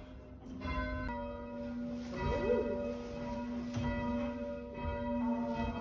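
A ring of church bells, cast together as one set in 1906, being rung by bell ringers. A few strokes ring out, each one humming on under the next, so the bell tones overlap in a steady, sustained chord.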